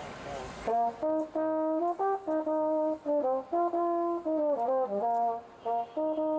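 A brass horn played solo: a simple melody of separate held notes, starting less than a second in.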